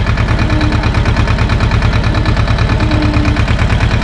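SAME tractor's diesel engine running steadily as the tractor drives along a field track, with a fast, even firing pulse. A faint whine comes and goes twice.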